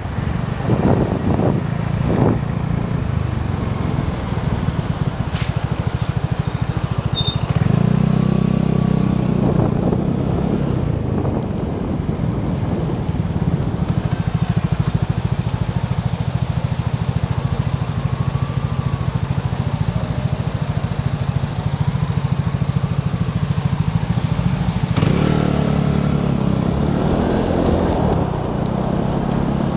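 Vespa GTS 250 i.e. scooter's single-cylinder four-stroke engine running under way in city traffic. The engine pulls harder about eight seconds in and again near the end. A faint tone rises and falls in the background midway.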